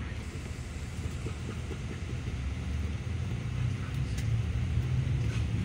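Yutong bus driving at steady speed, heard from inside the cabin: a steady low rumble of engine and road noise.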